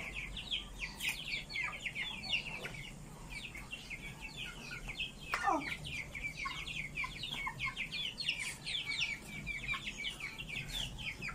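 Chickens chirping and peeping nonstop in many short, high, falling notes. One louder falling call comes about five and a half seconds in.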